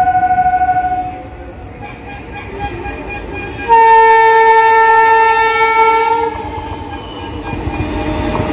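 WAP-7 electric locomotive horn sounded while the train approaches at speed: a higher-pitched blast that ends about a second in, then a louder, lower blast lasting about two and a half seconds. The rumble of the oncoming train rises near the end.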